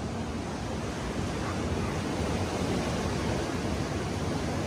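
Steady rushing of ocean surf mixed with wind, heaviest in the low rumble and without any change.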